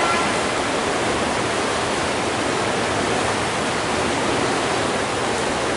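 Steady rushing and churning of water in an indoor paddling tank, stirred up by several paddlers stroking together.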